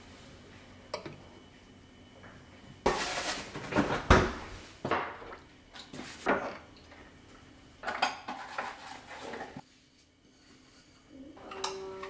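Ceramic bowls and plates clinking and clattering as they are set down and stacked on a counter, in several separate bouts, the loudest about three to four seconds in.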